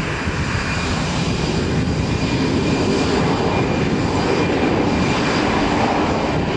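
Airbus A320 jet engines at takeoff thrust as the airliner rolls down the runway: a steady loud rush with a faint steady high whine, building slightly.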